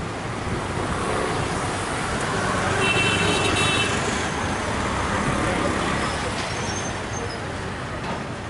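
Steady road traffic noise that swells and fades in the middle, with a short high-pitched toot about three seconds in.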